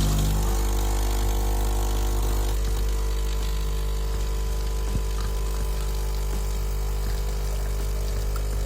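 Bialetti Mokona espresso machine's vibratory pump running with a steady low hum while brewing, pushing water through the freshly unclogged filter holder; it cuts off suddenly near the end.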